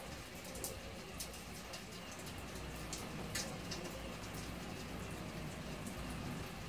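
Steady rain falling, with many separate drop ticks close by.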